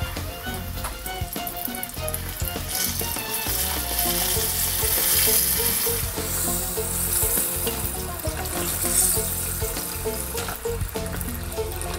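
Flour-dredged smelts deep-frying in hot oil in a saucepan, a steady sizzle that swells louder about three seconds in and eases off near the end, with soft music underneath.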